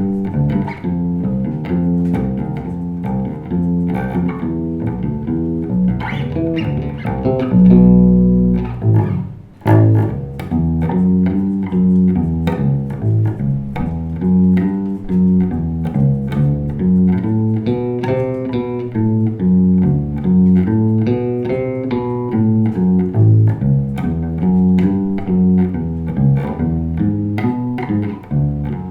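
Yamaha RBX MS-200 electric bass guitar played in a sound test: a continuous run of plucked notes, with one long held note about eight seconds in and a short break just before ten seconds.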